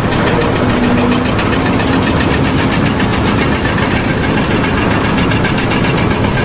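A heavy machine's engine running steadily and loudly, with a fast, even rattle.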